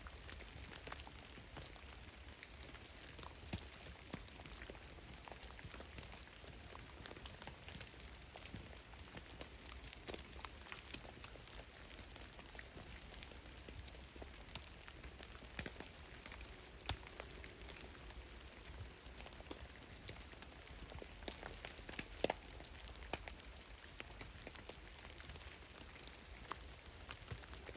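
Meltwater dripping from melting snow: scattered, irregular drops tapping at uneven intervals over a faint steady hiss, a few of them louder, like rain.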